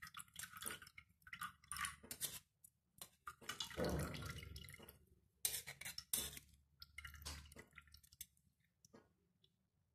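Steel perforated ladle pressing and scraping cooked herbs in a steel tea strainer: faint, irregular metal clicks and scrapes, the longest and loudest about four seconds in, with herbal coconut oil dripping into the pan below.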